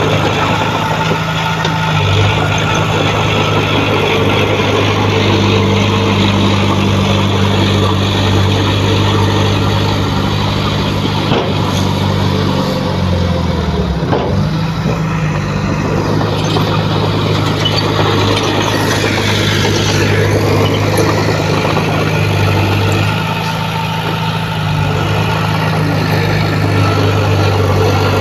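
Heavy diesel engine of earth-moving equipment running steadily, its pitch dipping briefly and recovering about halfway through.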